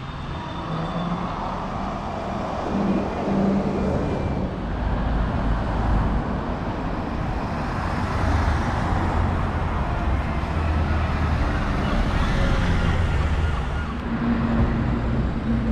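Street traffic passing close by: a double-decker bus and then a van drive past, with engine hum and tyre noise on the road.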